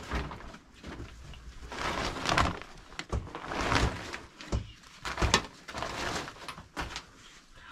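Metal ladle scraping and clinking against metal pots and a metal bowl as cooked rice is scooped out, in irregular bursts several times over.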